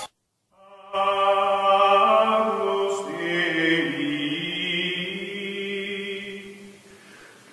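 Chant-like choral music: slow, long held notes from several voices, starting about a second in after a brief silence, moving to new notes about three seconds in, and fading near the end.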